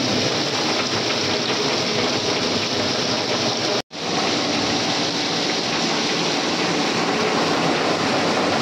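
Heavy monsoon rain pouring down in a steady downpour, cut off for an instant about four seconds in.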